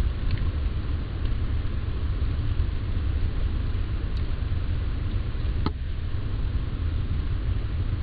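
Steady low rumble with an even hiss above it, the background noise of a trail camera's built-in microphone, and a single faint click about two-thirds of the way through.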